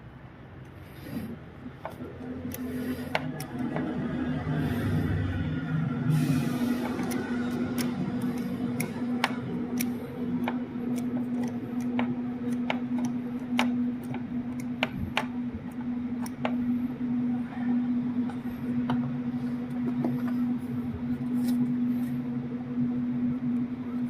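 Engine running with a steady hum that settles in about two seconds in, with scattered sharp ticks throughout.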